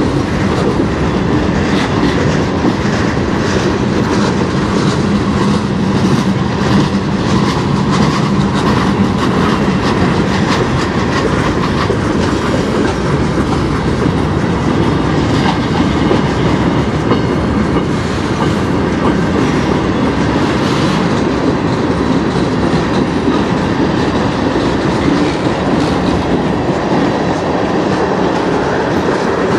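Freight train cars (covered hoppers and tank cars) rolling past, steel wheels rumbling steadily and clicking over the rail joints, loud throughout.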